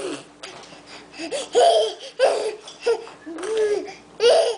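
Baby babbling and laughing in a string of short, high-pitched vocal bursts.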